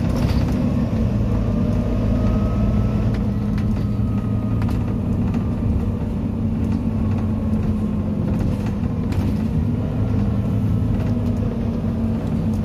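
Volvo B9TL double-decker bus running steadily along the road, heard from inside the cabin: a continuous low engine drone and road rumble, with a few light knocks from the bodywork.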